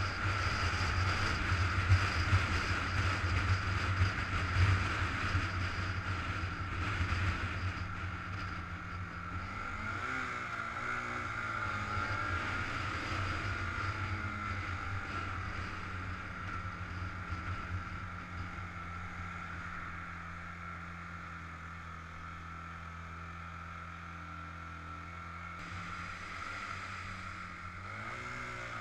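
Suzuki GZ 250 single-cylinder motorcycle engine running under way, with wind noise over the helmet or bike camera. The engine pitch holds steady for long stretches and shifts about ten seconds in and again near the end, and wind rumble is heavier in the first several seconds.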